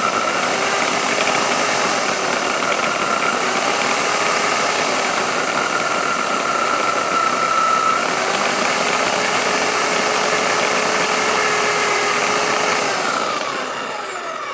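Electric drill motor driving a homemade mixer-grinder jar and grinding grated coconut, running at a steady high speed with a whine over the churning of the blade. It winds down with a falling pitch near the end.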